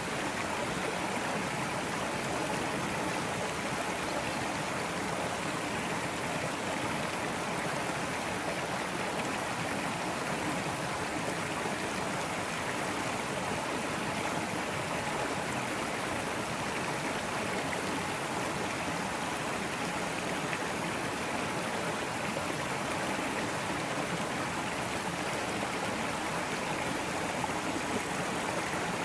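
Small woodland brook running over stones in a little cascade: a steady, even rush and burble of water.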